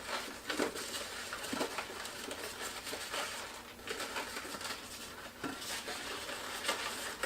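Latex twisting balloons being handled and twisted: scattered light rubbing and small clicks.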